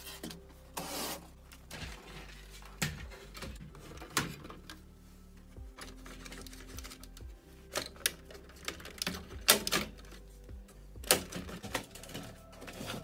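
Irregular plastic clicks, knocks and rattles as the Sony MHC-RX99 mini hi-fi's front panel and casing parts are handled and pushed together, the sharpest knocks a little after halfway and again near the end, over quiet background music.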